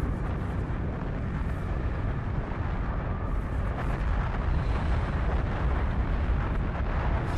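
A steady, deep rumble: the documentary sound effect for a huge asteroid rushing down through the atmosphere just before impact, with no single bang.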